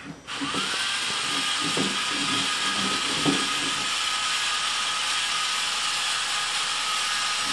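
A small electric motor running steadily with a hiss and a thin whine, rising briefly in pitch as it spins up just after the start.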